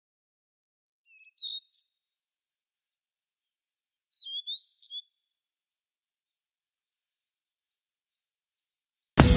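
Bird chirping: short, high calls in a few quick clusters, about a second and a half in and again around four and a half seconds in, with fainter chirps later, against dead silence.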